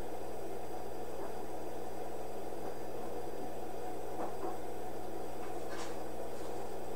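Steady mechanical hum with an even hiss, broken by a few faint short clicks or scrapes, one about four seconds in and one near six seconds.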